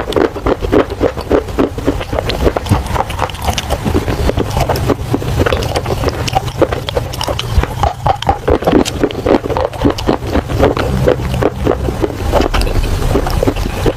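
Close-miked chewing of pieces of a clay pot: a fast, uneven run of sharp crunches and cracks, with a steady low hum underneath.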